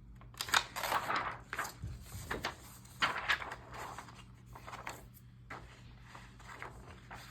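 Paper and plastic sheets being handled, rustling and crinkling in irregular bursts, busiest in the first half.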